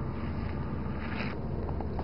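Steady low rumble of a running vehicle, with a short rustle about a second in.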